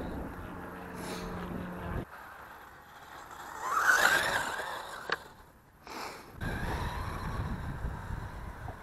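MJX Hyper Go RC car's electric motor whining, rising and falling in pitch about four seconds in as the car tumbles on the grass, with a sharp click just after. Wind noise on the microphone in the last few seconds.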